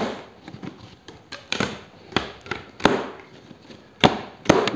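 White plastic packing straps being cut and pulled off a cardboard box: a string of sharp snaps and short scraping rustles, about seven of them.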